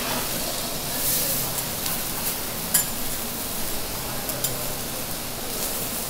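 Split whole fish searing on a steel teppanyaki griddle, a steady high sizzle. Metal spatulas click and scrape against the hot plate; the loudest sharp clack comes a little before the halfway point.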